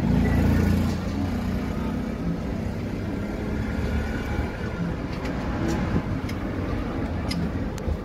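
Low, steady rumble of a running motor vehicle, loudest in the first second, with a few faint ticks.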